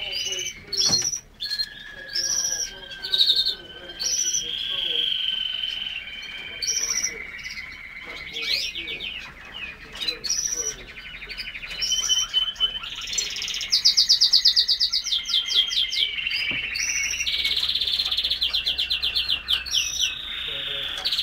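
Several caged finches singing at once: long trills of rapidly repeated notes, held whistled notes and short chirps overlapping throughout, with the loudest rapid trills about two-thirds of the way in.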